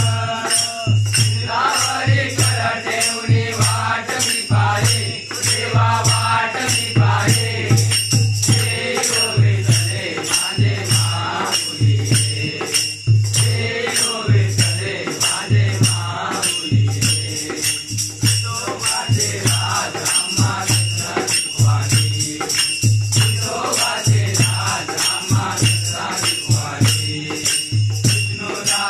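A group of men singing a Hindu aarti together, with a steady drum beat and quick, regular metallic jingling keeping time.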